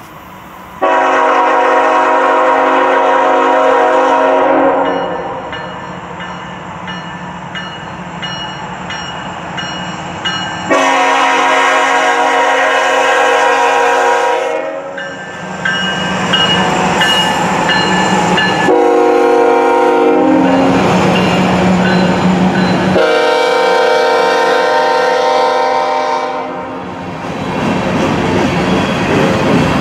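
Freight locomotive's multi-chime air horn on a BNSF ET44C4 sounding the grade-crossing signal, long, long, short, long, each blast a steady chord. Between the blasts and after the last one the locomotives and freight cars roll past, their wheels clattering on the rail joints.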